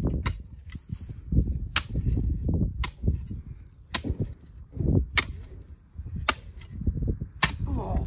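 A spade being driven into turf and soil over and over, about once a second: each stroke gives a sharp click of the metal blade, with dull thuds of earth between the strokes.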